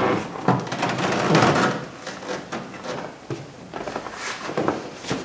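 Door trim panel of a 1965 Pontiac GTO being pressed and worked into place against the door and up into its window molding: a series of rustles, scrapes and light knocks, quieter in the second half.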